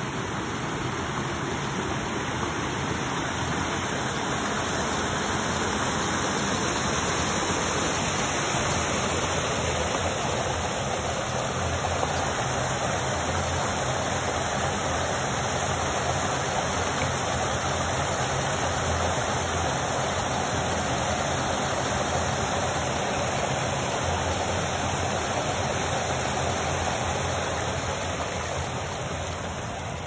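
Water spilling over a small stone weir in a woodland stream: a steady rushing that eases a little near the end.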